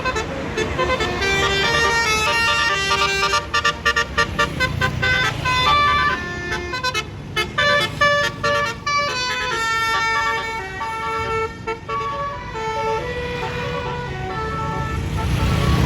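Multi-tone 'telolet' bus horn of the Basuri type playing a melody of short notes, stuttering in quick on-off blasts through the middle. A bus engine rumbles underneath, growing louder near the end as the bus passes.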